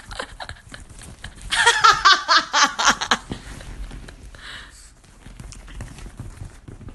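A woman laughing: a loud run of quick peals of laughter about a second and a half in, lasting under two seconds, then softer giggling.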